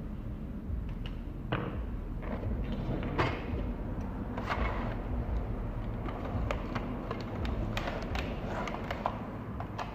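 Light knocks and clicks of small parts being handled and set down on a wooden workbench, coming more often in the second half, over a steady low background rumble.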